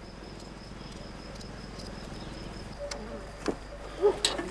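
Crickets chirping: a thin, steady high trill over a faint outdoor hush that fades about three seconds in. A sharp click comes a little after that, then a few small knocks near the end.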